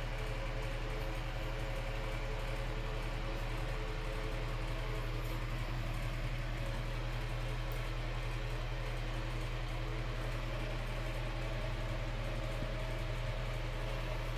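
Steady low mechanical hum from a small motor, unchanging throughout, with several faint steady tones above it.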